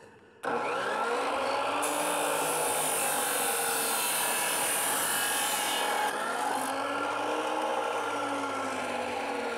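An abrasive chop saw starts about half a second in, and its cut-off wheel grinds through rusty steel exhaust tubing, throwing sparks. From about six seconds in the wheel is lifted clear of the pipe and the motor runs on, slightly quieter.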